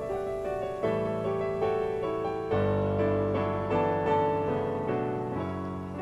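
Background piano music: slow notes and chords struck roughly once a second, each ringing and fading before the next.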